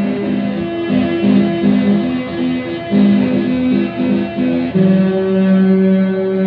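Electronic keyboard playing a melody in a guitar-like voice: a quick run of short notes, then longer held notes near the end.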